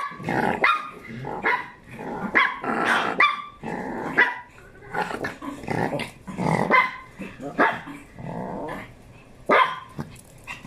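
Small dogs barking and growling, many short calls at irregular intervals.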